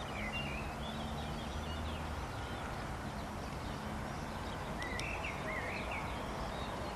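Outdoor ambience of small birds chirping in short bursts, near the start and again about five seconds in, over a steady low hum.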